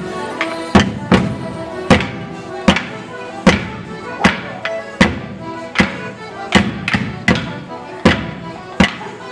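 Border morris dance music: a folk tune of held notes, cut through by loud sharp knocks on the beat, a little under one a second, some coming in quick pairs.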